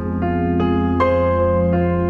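Background music: gentle keyboard or electric piano notes, one struck about every half second over a sustained low tone.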